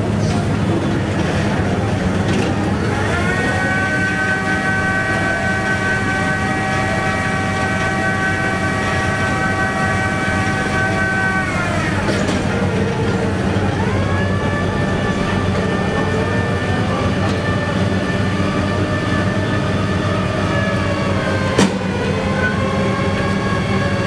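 Rotary drilling rig running, its engine humming steadily under a hydraulic whine. The whine rises about three seconds in, holds, falls away about halfway through, then rises again and holds. A single sharp click comes near the end.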